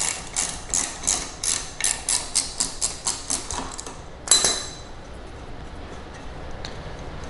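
Socket ratchet clicking steadily, about five clicks a second, as it is worked back and forth to loosen the 13 mm nut on a power-chair caster's axle bolt. A little after four seconds in the clicking stops and there is a single sharp clack as the metal ratchet is set down on the floor.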